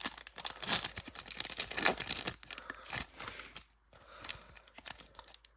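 A foil hockey card pack being torn open by hand: the wrapper rips and crinkles in a run of sharp bursts that thin out after about three and a half seconds.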